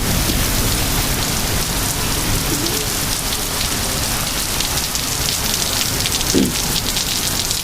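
Heavy, blinding rain from a severe thunderstorm pouring down in a steady, even hiss, driven by strong wind gusts.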